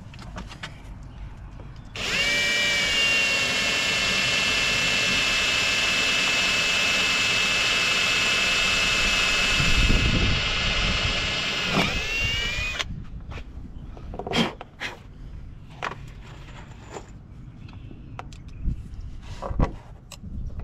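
Cordless drill running under load against a PVC splash rail on a fibreglass boat hull, a steady whine for about ten seconds that speeds up briefly just before it stops. A few light knocks and clicks follow.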